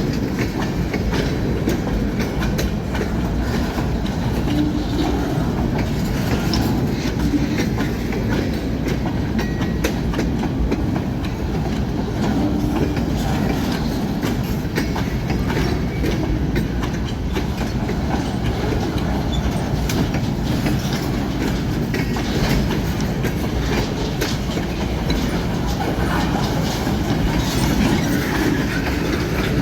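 Escanaba & Lake Superior freight train rolling past close by: a steady rumble of railcars with the rapid clickety-clack of wheels over the rail joints.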